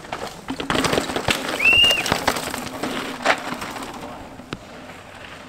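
Mountain bike riding a rocky dirt race track: tyres crunching over dirt and stones and the bike knocking and clattering, quieter after about four seconds. A short high squeal comes a little under two seconds in.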